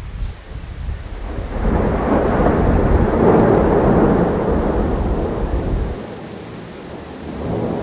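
Rolling thunder: a rumble swells about a second and a half in, peaks, and dies away, and a second rumble begins near the end.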